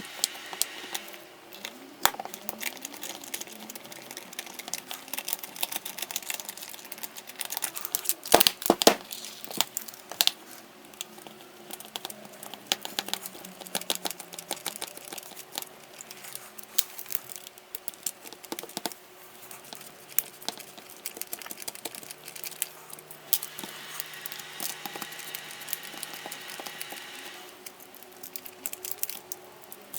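Many small clicks and crackles of a cordless hammer drill's plastic housing being handled and pried apart, with a cluster of louder clicks about eight to nine seconds in.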